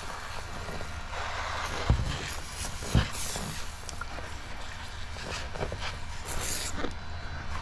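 Hand-pumped pressure sprayer squirting alcohol tack solution under paint protection film, in short hissing spurts, with two dull knocks about two and three seconds in.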